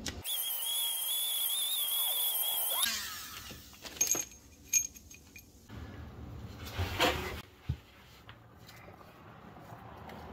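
Tool work on bolt threads being cleaned up: a high, wavering whine for the first few seconds, then scattered metallic clicks and knocks as tools and bolts are handled.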